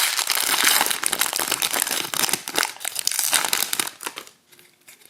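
Hockey card pack wrapper crinkling loudly as it is handled and torn open. It dies away about four seconds in.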